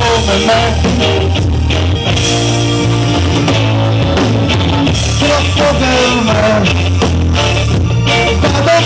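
Live band music over the PA, with electric guitar, drums, bass and keyboard, and a man's voice on the microphone.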